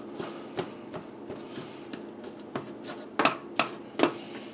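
A hand breaking up raw ground beef in a stainless steel frying pan: soft squishing with light knocks of fingers against the pan, three sharper knocks about three seconds in, over a faint steady hum.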